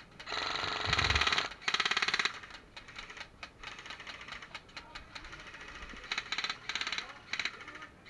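Airsoft guns firing rapid full-auto bursts: a burst of about a second and a shorter one in the first two seconds or so, then three short bursts near the end.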